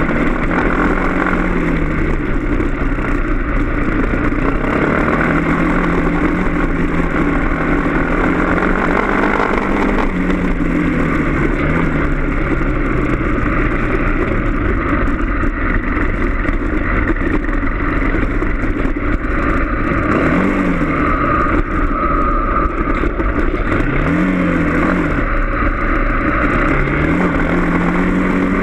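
Trail motorcycle engine running on a rough dirt track, heard on board, its pitch rising and falling with the throttle and giving several quick revs in the last third, with wind and road noise over it.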